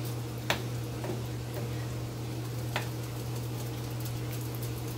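A steady low hum runs under two sharp light clicks, one about half a second in and one a little before the three-second mark, with faint scattered ticking between them.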